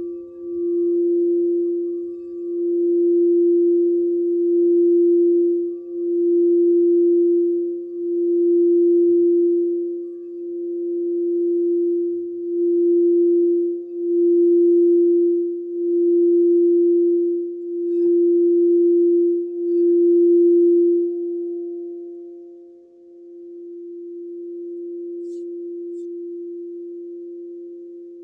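Quartz crystal singing bowl played by rimming with a mallet: one pure, steady tone that swells and dips about every two seconds. About 21 seconds in the rimming stops and the tone rings on, swelling once more and slowly fading.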